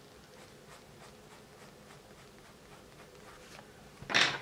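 Coloured pencil scratching lightly on paper in short shading strokes. About four seconds in comes a loud, sharp clack of pencils knocking together as the pencil is swapped.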